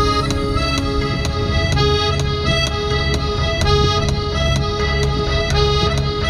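Background music: a melody of sustained notes over a steady beat.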